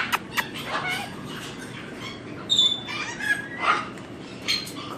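Pet parrots making scattered short whistles and squeaky chirps, with a few sharp clicks near the start.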